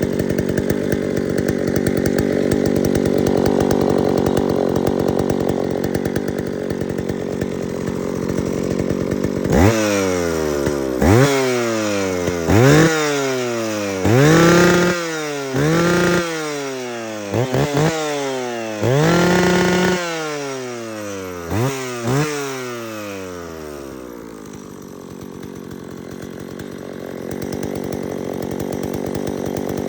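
Vintage Jonsereds 80 two-stroke chainsaw idling, then revved in about ten quick throttle blips, each rising sharply and dropping back, before settling back to idle.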